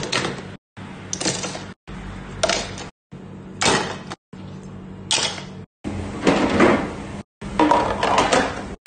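Plastic slush-machine parts being handled and dropped into a plastic storage box, clattering and knocking every second or so over a steady low hum. The sound cuts out briefly about once a second.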